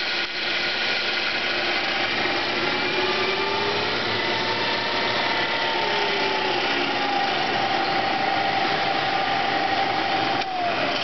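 Bridgeport 2J variable-speed milling machine's 1.5 hp spindle drive running in low range: a steady mechanical whine with a couple of faint tones that drift slightly in pitch. Near the end the higher tone dips.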